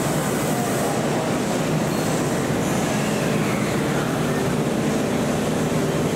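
Kintetsu express train running along a station platform: a steady rumble of wheels and motors, with a faint whine falling in pitch about three seconds in.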